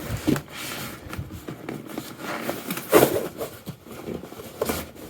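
Cardboard packaging being handled as the product is pulled out of its box: irregular rustling and scraping with a few light knocks, the loudest scrape about three seconds in.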